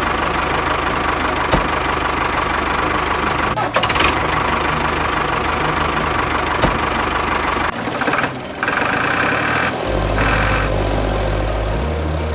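A small motor running steadily with a rattling hum, changing briefly about two-thirds of the way through before running on.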